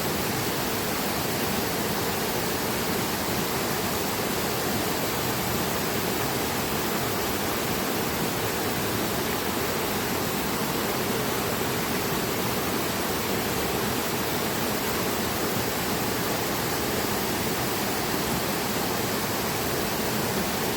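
Steady rush of flowing water, an even, unbroken hiss without changes.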